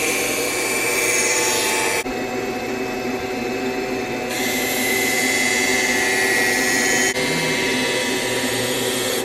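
Skate sharpening machine's grinding wheel running steadily, with a hissing grind twice as the figure skate blade is drawn across the wheel: once for the first two seconds or so, and again from about four to seven seconds in. The grinding takes down the blade's high edge so that both edges come level.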